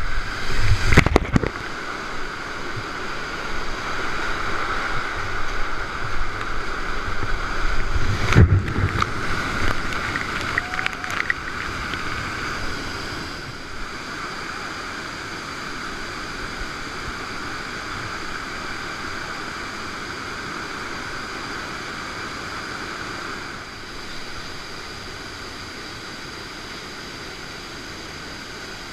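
Steady rush of whitewater river water, with two low thumps, one about a second in and one about eight seconds in.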